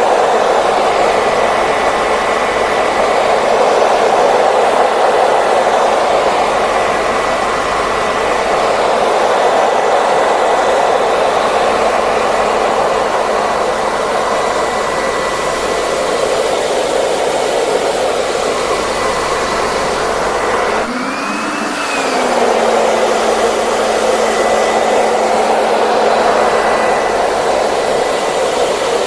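Hair dryer running steadily: a loud, even rush of air with a faint high motor whine. About 21 seconds in, the level dips briefly and the whine rises and falls once before settling.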